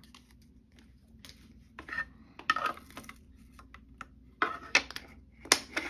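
Small resin diamond-painting drills rattling and clattering in a plastic tray as they are tipped and poured into a small bag, in several short bursts.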